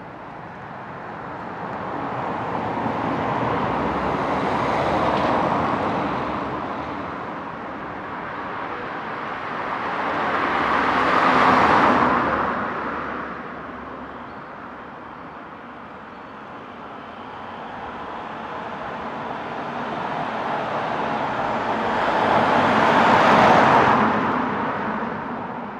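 Cars passing by on a town street one after another: three swells of road noise, each building up and fading away, about six seconds apart at first. The second and third, near the middle and near the end, are the loudest.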